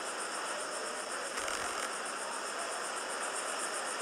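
Launch-pad ambient sound on the live broadcast feed: a steady hiss with a fast, high-pitched pulsing chirr over it.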